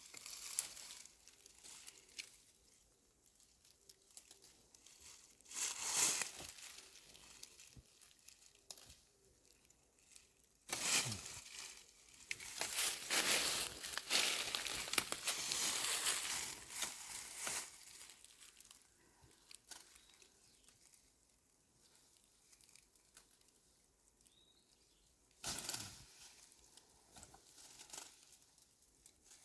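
Crinkling and rustling handling noise, like material being crumpled and handled, in bursts: a short one about six seconds in, a long busy stretch in the middle, and another short burst near the end.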